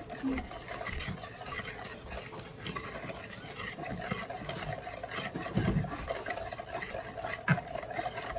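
A whisk stirring milk and instant pudding mix in a bowl: a steady run of quick stirring strokes through the liquid, with small ticks against the bowl.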